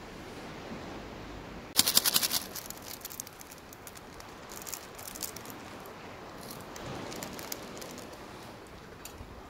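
Objects being handled: a short, rapid rattle of sharp clicks about two seconds in, then faint scattered ticks and rustles.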